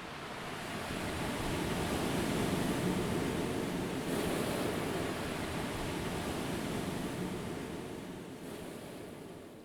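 Rushing, surf-like noise of ocean waves that swells over the first few seconds, then fades out gradually.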